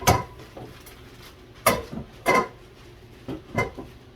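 Kitchen utensils knocking against metal cookware during cooking, about six sharp clanks at irregular intervals, some ringing briefly.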